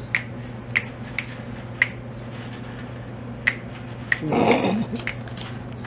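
Finger snaps: sharp single clicks about every half second for the first two seconds, then a few more scattered later. A brief, louder rough noise about four and a half seconds in, over a steady low hum.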